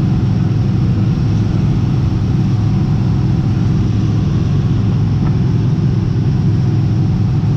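Cessna T210 Turbo Centurion's turbocharged six-cylinder engine and propeller running steadily in flight, a loud low drone heard from inside the cockpit.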